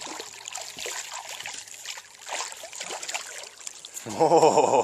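A hooked bass splashing and thrashing at the water's surface as it is reeled in alongside the boat. Near the end comes a short, loud shout.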